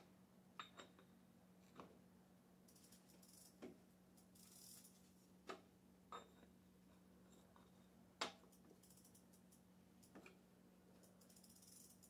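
Faint metal clicks and taps from hand tools working on an e-bike's crank at the bottom bracket, about nine spread unevenly over the stretch, over a faint steady hum.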